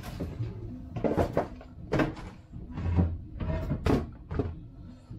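Irregular clicks, knocks and rustles of hands handling wires and plastic parts on an RC car chassis, with a heavier knock about three seconds in.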